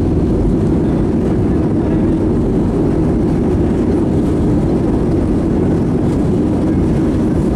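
Steady, loud rumbling roar inside the cabin of an Airbus A320 with IAE V2500 engines during its landing rollout, ground spoilers up: engine noise and the rumble of the landing gear rolling on the runway.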